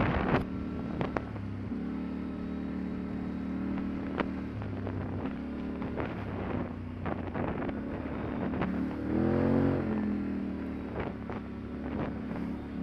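ATV engine running steadily while riding a rough, muddy trail, with scattered knocks from the machine going over bumps. About three-quarters of the way through, the engine revs up and back down.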